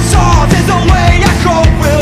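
Loud punk rock music with driving drums, distorted guitar and a singing voice.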